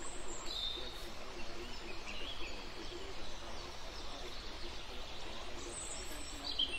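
Birds chirping in short high calls a few times, over a steady background hiss.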